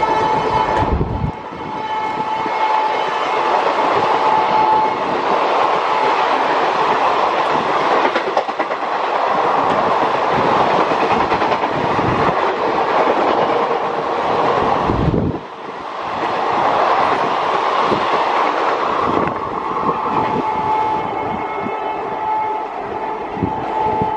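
Passenger train coaches passing at about 110 km/h: a steady, loud rush of wheels on rail with short clicks from the track. A train horn sounds at the start and fades about a second in; a horn is heard faintly again near the end.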